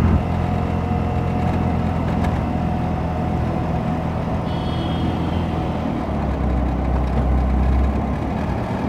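Auto-rickshaw engine running steadily while the vehicle drives, heard from inside the open cab with road noise. About six seconds in, the engine note drops lower for a couple of seconds.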